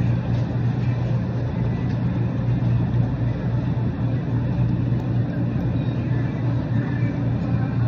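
Steady low hum and background noise of a supermarket aisle beside running refrigerated display cases.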